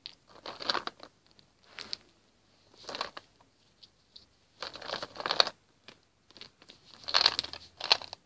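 Hands rummaging through a plastic tub of small toy figures: short bursts of rustling and crinkling, about five in all, the loudest about halfway through and near the end.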